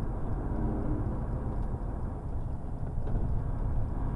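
Truck's diesel engine and road noise while driving, a steady low rumble heard from inside the cab.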